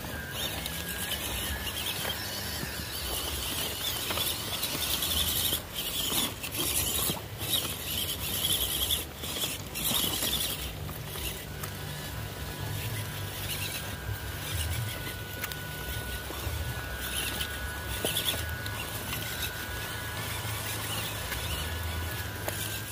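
Small electric RC off-road trucks driving over rough ground: a thin, steady motor whine from about halfway through, over a rough hiss and low rumble with scattered knocks.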